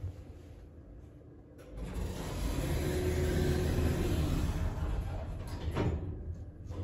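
Schindler 3300 elevator's automatic sliding doors closing: the door operator runs with a steady noise and a brief tone, and the doors meet with a knock near the end.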